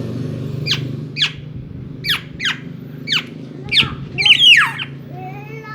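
Black-naped oriole (kepodang) giving a series of sharp, quick down-slurred call notes, with one longer, harsher call about four and a half seconds in; the bird is agitated. A steady low hum runs underneath.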